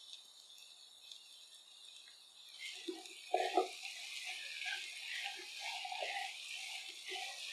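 Masala sizzling in a nonstick pan with moringa drumstick pieces. About two and a half seconds in, a silicone spatula starts stirring: the sizzle gets louder and the pieces knock and scrape against the pan, with two louder knocks a little over three seconds in.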